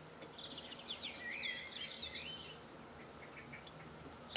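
Faint songbird song: quick warbling chirps and sliding whistles. A single sharp click comes right at the end.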